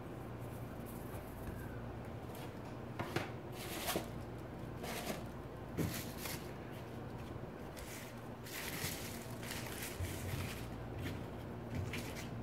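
Plastic zip bags and bubble wrap rustling and crinkling as they are picked up and pushed aside, in short irregular bursts, over a steady low hum.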